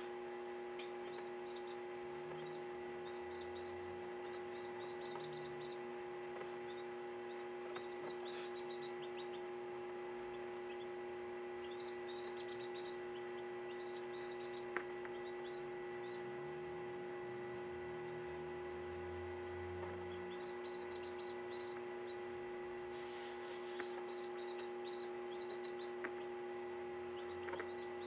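Steady electrical hum of an egg incubator, with a newly hatched chick peeping faintly in short runs of high calls every few seconds, and a single click about halfway through.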